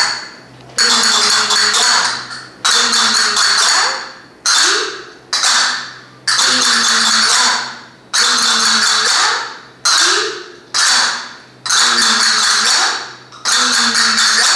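Castanets played in a repeating exercise: fast clattering rolls, made by scratching the fingernails across the castanet, each ending in sharp clicks, over and over about every one and a half to two seconds.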